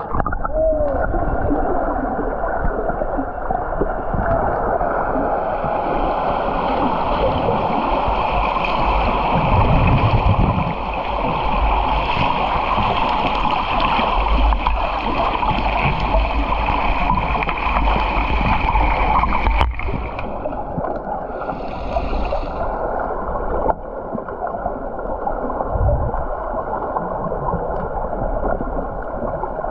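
Underwater sound of a swimming pool, as a submerged camera picks it up: a dense gurgling churn of water and bubbles from swimmers kicking and grappling. There is one sharp knock about twenty seconds in.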